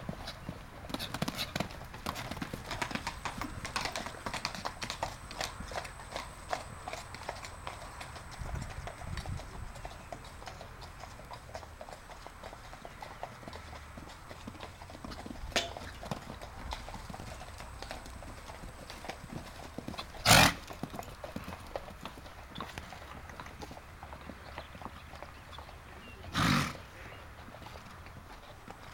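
Hoofbeats of a horse cantering on a sand arena, in a steady rhythm, plainest in the first part. Two much louder short noises stand out in the second half, about six seconds apart.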